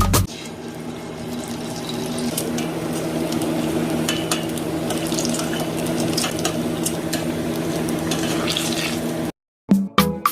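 Cassava frying in hot oil: a steady sizzle with faint crackles, which cuts off about nine seconds in.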